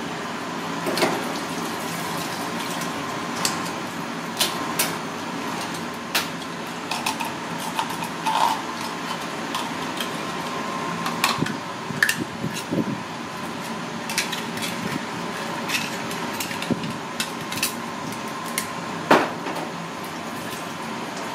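A shucking knife clicking and scraping against the ridged shell of a red clam (ark clam) as it is pried open and cleaned. The clicks are sharp and irregular, over a steady hiss.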